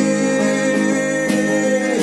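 Instrumental worship music: sustained chords with guitar strums, between sung phrases.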